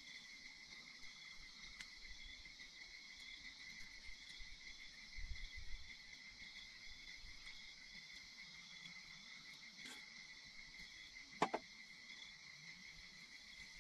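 Faint steady chorus of insects chirring, with one sharp click near the end and a brief low rumble about five seconds in.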